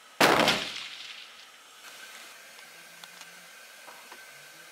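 A single loud shot from a Sharps rifle in .45-70, a sharp crack with a deep boom that trails off over about a second. A few faint ticks follow.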